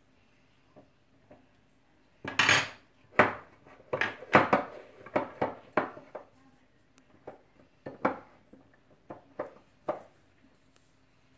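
Spatula scraping and clacking against the inside of a stainless steel pot while stirring chicken pieces: a quick run of sharp scrapes and knocks starting about two seconds in, then fewer and quieter strokes toward the end.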